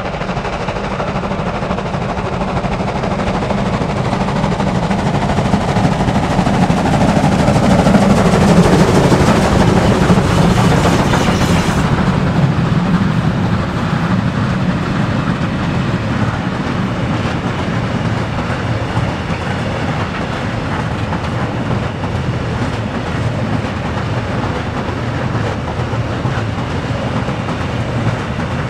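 Steam-hauled train passing: the locomotive goes by loudest about a third of the way in, with a tone falling in pitch. The long string of wagons follows, rolling past with a steady rhythmic clatter over the rail joints.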